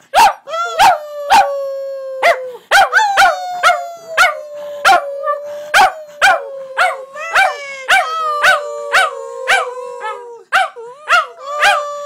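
Two Border Terriers howling together: long, slowly falling howls, at times two overlapping, broken by short sharp cries about twice a second.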